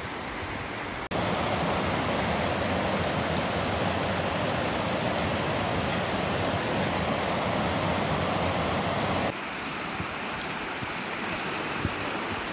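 Small river's water rushing, a steady hiss; it turns abruptly much louder about a second in and abruptly quieter again after about nine seconds.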